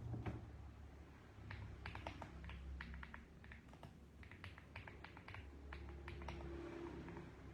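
Typing on a mechanical keyboard: irregular runs of quick key clicks starting about a second and a half in, after a single knock at the start.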